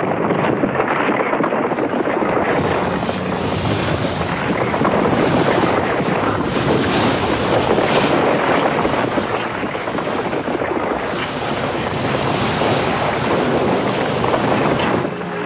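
Lava fountain erupting on Mount Etna: a continuous loud rushing noise that swells and eases, with wind buffeting the microphone.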